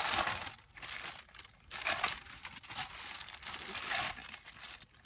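Plastic packaging crinkling and rustling in irregular bursts as it is handled and opened.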